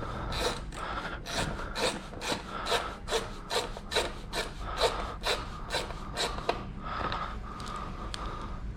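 Socket ratchet working a bolt loose, its pawl rasping on each return stroke in a steady rhythm of about two to three strokes a second. The strokes stop about two-thirds of the way through.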